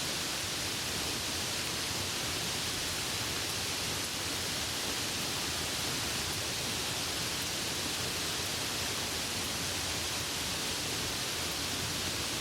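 Steady rain falling: an even, unbroken hiss, brightest in the high range, with no single drops or thunder standing out.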